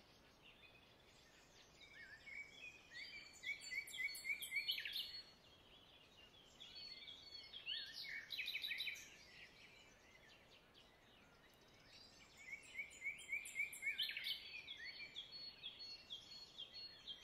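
Birds singing faintly, in three bouts of quick repeated high chirps with short quiet gaps between them.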